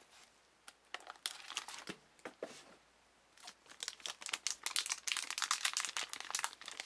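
Plastic packaging crinkling and rustling as it is handled, in rapid crackly bursts. The sound comes in briefly about a second in, then runs almost without a break through the second half.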